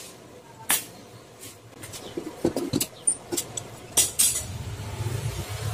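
Scattered metallic knocks and clinks as a square steel tube frame is tapped and handled on a workbench. A low hum comes in near the end.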